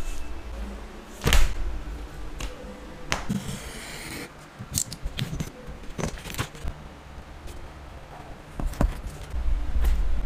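Paper pattern pieces and masking tape being handled on leather over a cutting mat: scattered light taps and clicks, with a short papery rustle about three seconds in.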